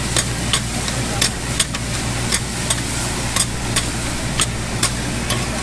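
Metal spatulas clacking and scraping on a hot iron griddle, about three sharp strikes a second, as greens are tossed and stir-fried over a steady sizzle. A low steady hum runs underneath.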